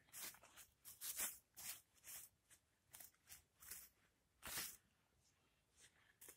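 Faint rustling and crunching of dry pine needles and forest litter, about a dozen short scrapes, that stop about four and a half seconds in.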